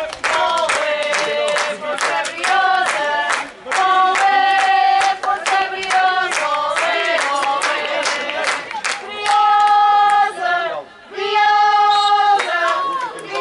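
A group of spectators singing a chant together, holding long notes, with hand clapping in the first half.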